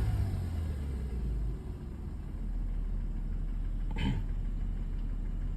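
Mercedes E350's M272 3.5-litre V6 coming down from a rev and settling into a low, steady idle. The warm engine has the rattle of a piston slapping in a scored cylinder; an endoscope later shows a deep score in cylinder six.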